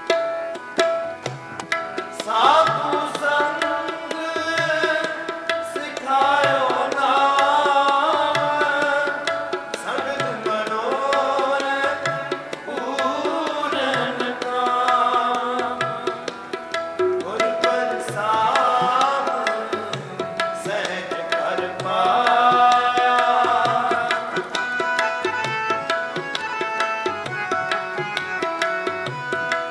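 Sikh kirtan: tabla playing a steady rhythm under the sustained reed tones of harmoniums, with a male voice singing in long, melismatic phrases from about two seconds in. The singing drops away near the end, leaving tabla and harmonium.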